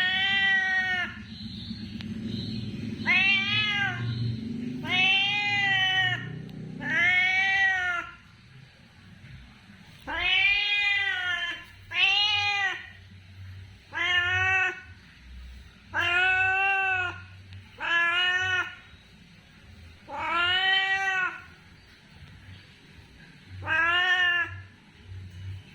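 A hungry domestic cat meowing to ask for food: about eleven drawn-out meows, one every two seconds or so, each rising and then falling in pitch.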